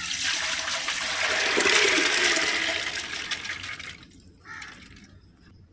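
Water and soaked chana dal poured from a bowl into a large empty aluminium pot, the water gushing and splashing into the pot. The pour is loudest in the middle and dies away about four seconds in.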